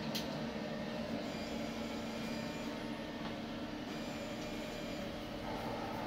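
Roland LEC-330 UV printer-cutter running as it processes a test print: a steady hum of fans and motors. A sharp click comes just after the start, and brief faint high whines come twice.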